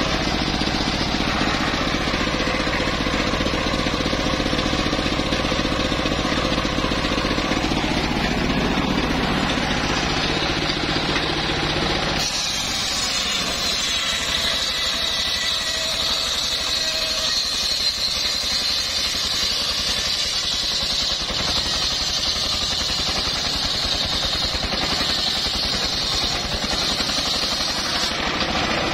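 Engine-driven circular sawmill blade ripping a log lengthwise, a steady loud running noise of engine and blade biting the wood. About twelve seconds in the sound changes abruptly: the low rumble drops away and a higher whine takes over.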